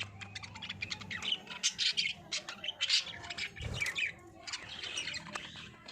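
Budgerigars chirping and warbling, a dense run of quick, high-pitched chirps and short squawks.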